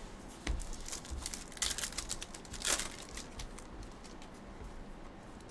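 Trading cards being handled and shuffled in the hands: light clicks and papery rustles of card stock sliding against card, busiest around two to three seconds in.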